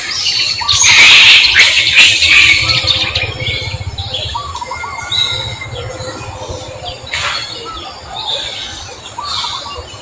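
Chirping and squawking animal calls in a busy outdoor ambience: a dense, loud flurry of calls about a second in, then scattered shorter chirps, with another burst about seven seconds in.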